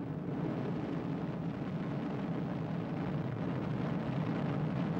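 Steady drone of aircraft engines in flight, an even rumble that builds slightly in the first second and then holds.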